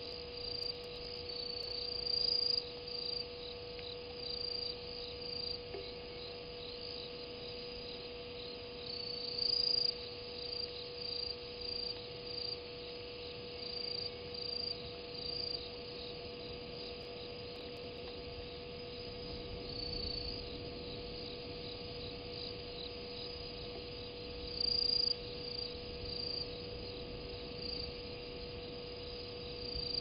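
Crickets chirping: short, high chirps repeating throughout, with a few louder, closer bouts, over a steady low hum.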